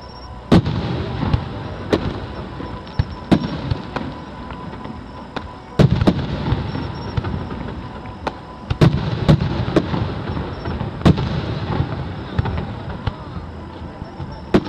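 Fireworks display: shells bursting with sharp bangs at irregular intervals over a continuous low rumble and crackle, with loud clusters of bangs about six seconds in and again around nine seconds.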